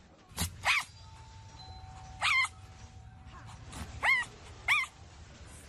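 Fennec fox giving five short, high-pitched yips, each rising and then falling in pitch: two quick ones near the start, one in the middle and two more in the second half.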